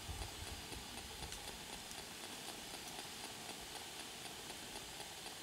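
Faint steady background hiss with no clear source, with a brief low rumble in the first half second.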